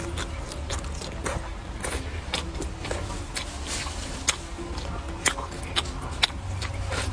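Close-up eating sounds: chewing and mouth noises with irregular sharp clicks and taps, over a steady low hum.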